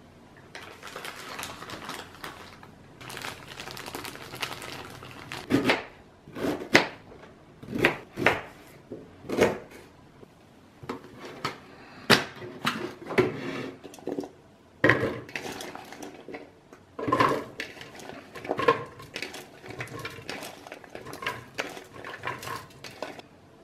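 Kitchen handling sounds: plastic rustling for the first few seconds, then a run of irregular sharp clicks and knocks as a plastic electric chopper is handled and chopped chillies are tipped into its plastic jar.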